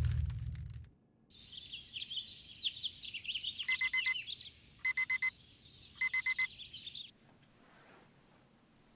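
Birds chirping, with a digital alarm clock beeping over them in three bursts of four quick beeps, about a second apart. Both stop together about seven seconds in.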